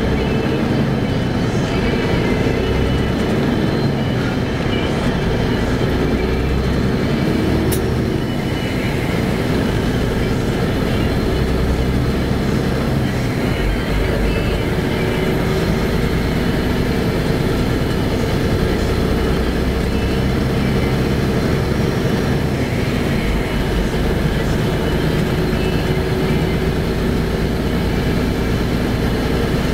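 Steady engine and road noise of a moving vehicle cruising along a street, a constant low drone.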